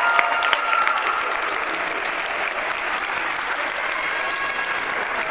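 Audience applauding: many hands clapping steadily, a little louder in the first second.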